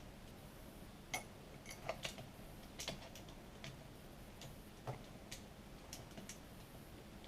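Scattered small clicks and taps, about a dozen at irregular intervals, from a hand screwdriver and the small screws being worked out of a 66cc two-stroke bicycle engine's case.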